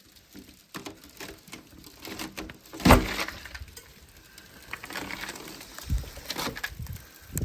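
A run of irregular crunches and knocks, the loudest a sharp knock about three seconds in.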